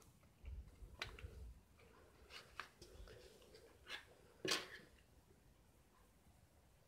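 Faint handling sounds of baking soda being sprinkled onto a super-glued propeller joint: a few light clicks and taps, the loudest about four and a half seconds in.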